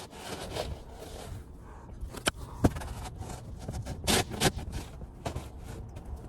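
Snow shovel scraping and digging through heavy, wet snow in a few irregular strokes, the sharpest a little after two seconds in and another cluster about four seconds in.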